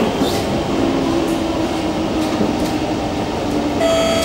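Kawasaki C151 MRT train running, heard from inside the car: steady rumble and rail noise with a low steady hum through most of it. Just before the end, a multi-tone electronic chime starts, the cue for the next-station announcement.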